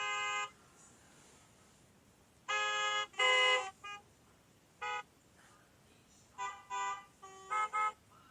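Car horns honking in a traffic jam: several horns of different pitches give short blasts and double toots, roughly one burst every second or two, with brief quiet gaps between them.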